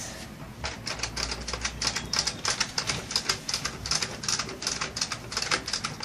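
Rapid, uneven run of small plastic clicks, several a second, starting about half a second in, from a toy Barbie washing machine being handled.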